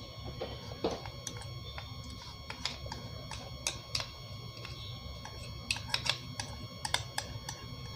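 Ghee poured into a pan of hot oil, crackling with irregular small pops as it melts, over a low steady hum.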